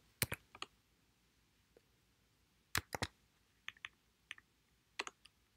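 Keystrokes on a computer keyboard: irregular single key clicks and quick pairs, with pauses between them.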